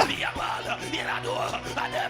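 Sustained background music with steady held tones, under many overlapping voices of a congregation praying aloud at once.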